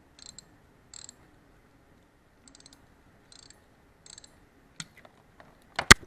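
Socket wrench ratchet clicking in short bursts, one burst per back-stroke, as the 19 mm oil drain plug is turned out. Near the end comes a single sharp knock, louder than the clicking.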